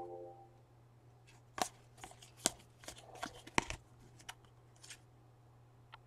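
Glossy football trading cards being flipped through by hand, each card slid off the pack to the back, giving a string of irregular crisp snaps and flicks.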